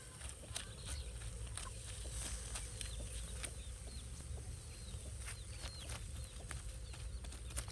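Fowl clucking with many short calls, over a steady low rumble and scattered sharp clicks.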